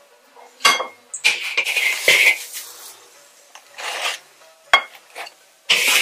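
Wooden spatula scraping in an iron wok as fried flatbreads are lifted out, with a few sharp clicks of the spatula and cake against the plate. The scraping comes in uneven strokes, the longest about a second in and another near the end.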